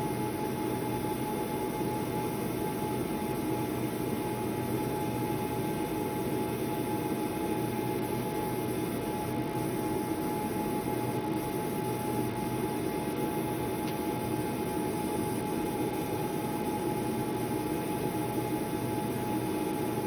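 Laser marking machine running at work on stainless steel: a steady fan-like hum with a thin, constant high whine over it.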